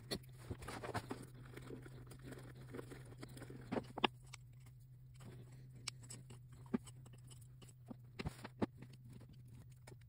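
Scattered small clicks, taps and knocks of hands handling knife parts, brass pins and tools on a workbench during an epoxy glue-up of the handle, over a steady low hum. The sharpest knock comes about four seconds in.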